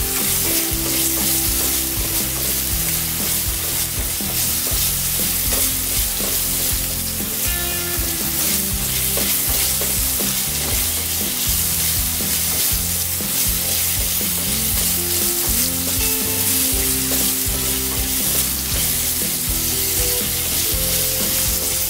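Carrots frying with a ground shallot, garlic and shrimp paste in hot oil, sizzling steadily while a utensil stirs and scrapes the pan.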